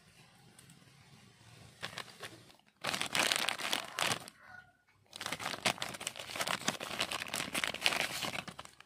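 Clear plastic zip-lock bag crinkling in two long bouts, starting about three seconds in with a short break in the middle, as hands handle it and pull a ferro rod out of it.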